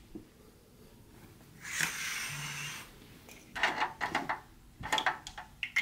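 Curtain swishing for about a second, then window blinds clicking and knocking several times.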